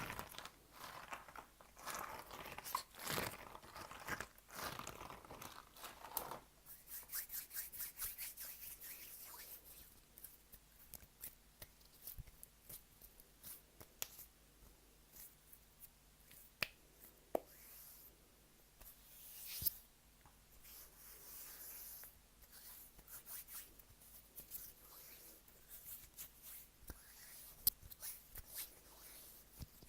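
Close-miked ASMR trigger sounds: a dense stretch of crinkling and rustling for about the first six seconds, then scattered soft clicks, taps and scrapes.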